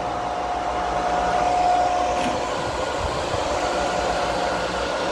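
Nova 5 cv two-pole three-phase compressor motor running at full speed with no load, just after switch-on. Its cooling fan gives a steady rush of air, and there is a steady electric whine.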